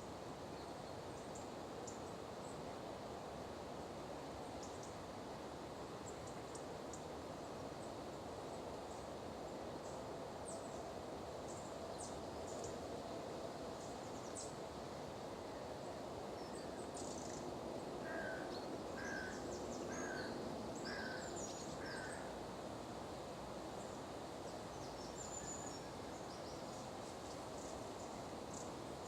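Outdoor ambience of wild birds calling over a steady low background rush: scattered short high chirps throughout, and a run of five short, evenly spaced calls about a second apart past the middle.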